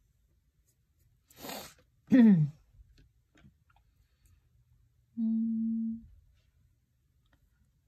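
A woman's wordless vocal sounds: a quick breath, then about two seconds in a short vocal sound falling in pitch, the loudest moment, and about five seconds in a steady hummed 'mmm' lasting under a second.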